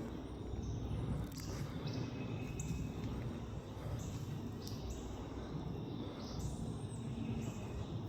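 Outdoor ambience: a steady low rumble with short, high bird chirps scattered through it every second or two.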